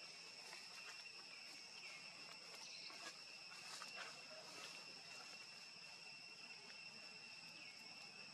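Faint, steady insect chorus: a continuous high whine that holds unchanged throughout, with a few faint ticks about three to five seconds in.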